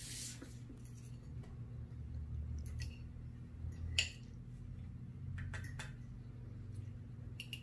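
A metal fork and knife clinking and scraping on a ceramic plate while a portion of caramel pudding is cut: a handful of separate short clinks, the sharpest about four seconds in, over a low steady hum.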